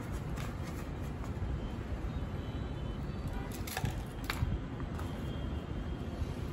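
A few light clicks and clatters of pottery brushes and tools dropped into a holder cup, about three and a half to four and a half seconds in, over a steady low background rumble.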